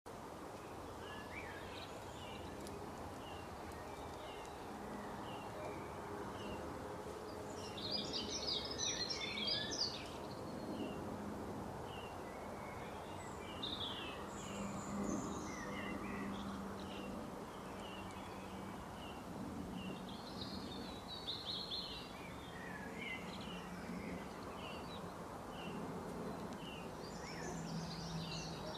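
Birds calling over a steady background hiss: a short high note repeats about once a second, broken by louder bursts of rapid chattering calls several times.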